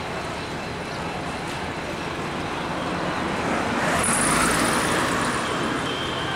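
Steady city traffic noise and the low rumble of an approaching diesel train. It swells louder about four seconds in, with a high hiss on top, then eases again.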